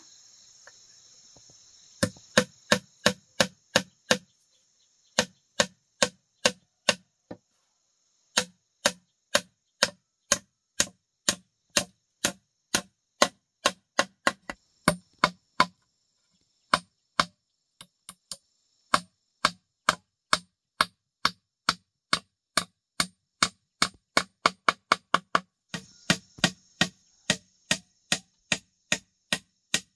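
A long series of sharp knocks, about two to three a second, starting about two seconds in and broken by short pauses, with insects trilling in the background at times.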